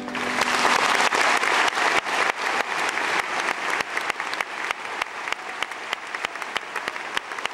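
Theatre audience applauding, swelling to a dense, loud peak about a second in and then thinning toward more separate claps. The orchestra's last held chord dies away under the first moment of the applause.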